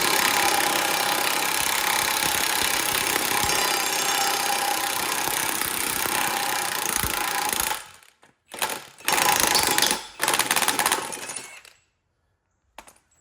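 Power tool running hard on a broken-off bolt for about eight seconds, then three short bursts before it stops. A small click near the end.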